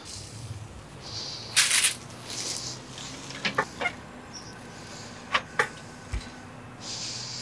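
Metal tongs clicking in pairs against the Big Green Egg's grill grate, with a short hiss about a second and a half in.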